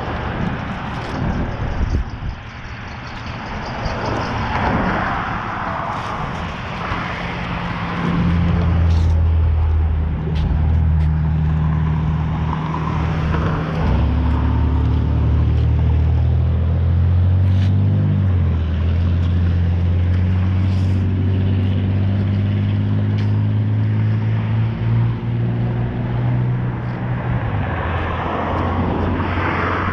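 Road traffic: a vehicle engine hums steadily and low from about eight seconds in for some twenty seconds, its pitch stepping slightly a few times.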